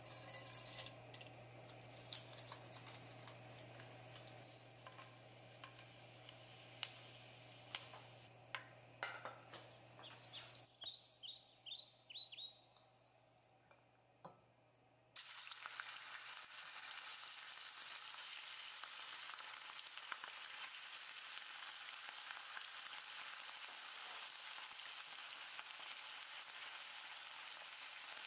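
Hot oil in a nonstick frying pan crackling, with sharp pops as whole spices and bay leaves fry in it. About halfway through it changes abruptly to a steady, denser sizzle: cubes of raw pork frying in the oil, stirred with a wooden spatula.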